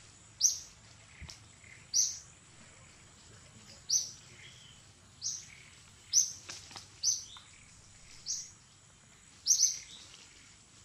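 A bird chirping: short, sharp, high notes repeated about once every second or so, at an irregular pace, with two notes close together near the end.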